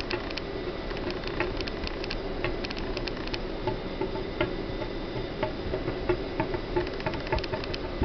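Daikin wall-mounted air conditioner indoor unit making a 'poko-poko' popping sound: irregular clicks, then from about halfway a regular run of soft pops about three a second, over a steady hum. This happens while a ventilation fan is running, which typically pulls outside air back up the unit's drain hose and through the water in the drain pan.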